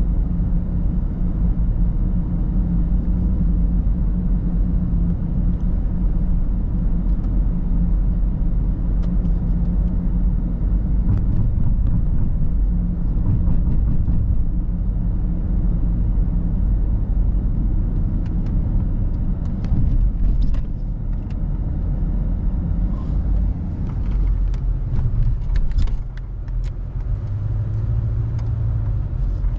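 Car driving, heard from inside the cabin: a steady low rumble of engine and tyres on the road, easing slightly near the end.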